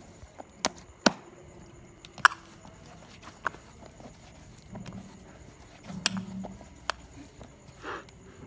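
Hand kneading maize-flour dough in an aluminium bowl: irregular sharp clicks and knocks against the metal bowl, with soft thuds of the dough being pressed around the middle and a brief scrape near the end.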